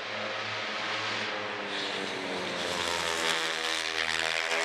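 High-revving engines of small J-GP3 class racing motorcycles passing on the circuit, several engine notes overlapping, growing brighter from about a third of the way in.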